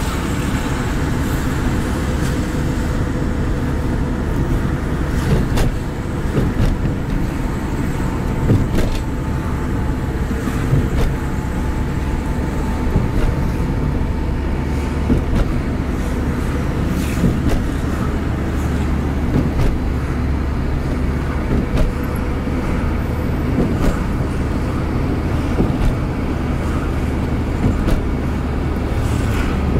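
Car driving along a road, heard from inside the cabin: a steady low rumble of engine and tyre noise, with a faint steady whine for some seconds and a few light knocks.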